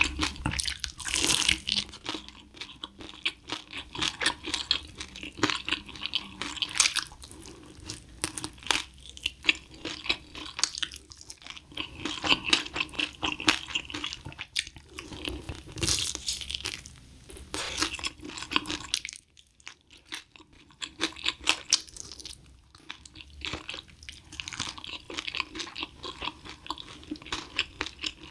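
Close-miked crunching and chewing of crispy spicy-glazed fried chicken (Kyochon Red Combo), bite after bite of crackling skin. There is a brief quieter pause about two-thirds of the way through.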